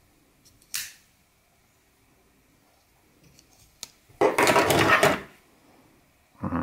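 Hands handling folding knives: a sharp click from a wood-handled folding knife about a second in and a smaller click near four seconds, then about a second of metal knives clattering and scraping against each other. Just before the end a pitched sound that rises in pitch begins.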